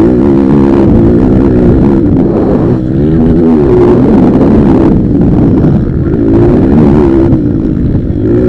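Motocross bikes racing, their engines revving up and falling back over and over, several bikes overlapping.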